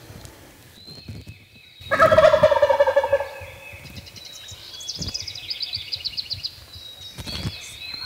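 A wild turkey tom on the roost gobbles once, a loud rattling call about two seconds in that lasts about a second. A fainter, fast, high trill from a smaller bird follows.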